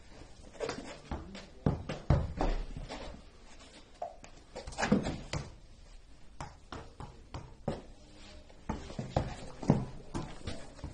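A football and a person's body thudding and knocking on a rubber floor during a freestyle trick: scattered thuds, a few of them louder, at irregular intervals.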